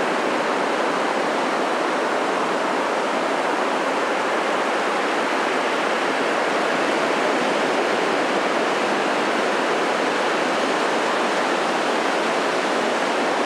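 Steady, even rushing of sea surf and churning water, without separate wave crashes standing out.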